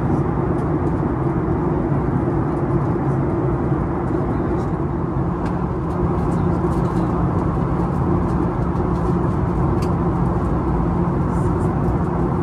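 Steady cabin noise of a Boeing 737-800 in flight, a constant drone of its CFM56 jet engines and airflow with a low, even hum.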